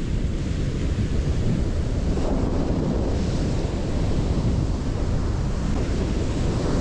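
Wind buffeting the microphone over the steady wash of breaking surf and waves running up the beach.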